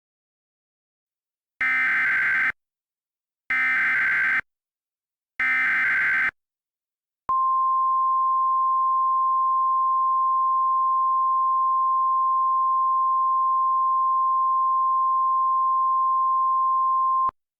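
Three short bursts of EAS SAME header data, each a buzzing digital screech about a second long, followed by the NOAA Weather Radio 1050 Hz warning alarm tone, one steady high pitch held for about ten seconds. This is the alert signal that precedes a broadcast weather warning.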